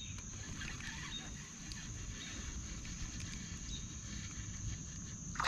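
Outdoor ambience of insects droning in one steady high pitch, over a low rumble and a few faint clicks.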